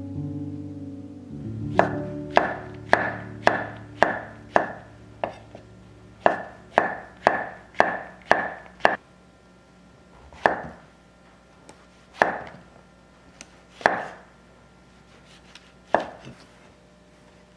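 Kitchen knife slicing fresh shiitake and king oyster mushrooms on a wooden cutting board: a run of even cuts about two a second, then a few slower single cuts, each a sharp tap of the blade on the board. Plucked guitar music fades out in the first second or so.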